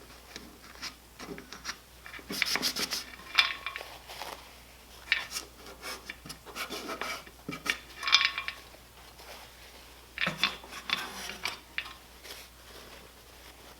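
Hands scrubbing and rubbing a metal boat-motor part while cleaning it, in irregular bouts with light metallic clinks and knocks.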